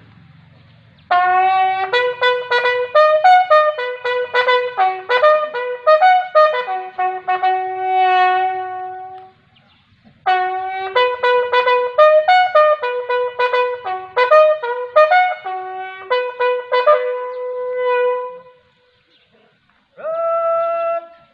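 A bugle sounds a ceremonial parade call in clear, loud notes, with a salute given at the same time. The call runs in quick figures and longer held notes, in two phrases with a short break about halfway. After a pause near the end, a few more held notes follow.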